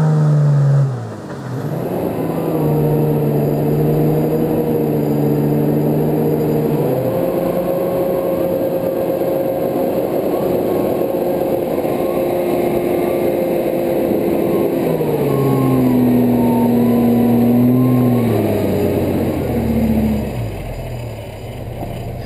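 Toyota LandCruiser 80 Series engine working under load as it crawls up a steep rutted, rocky climb. The revs hold steady, rise about a third of the way in, then drop back in steps near the end.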